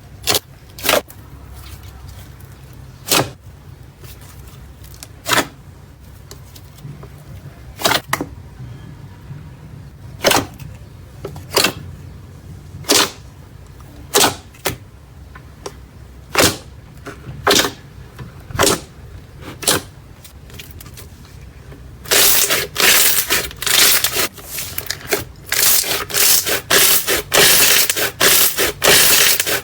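Slime being handled: sharp crackling snaps every second or two, then a dense run of crunching and crackling about three-quarters of the way through.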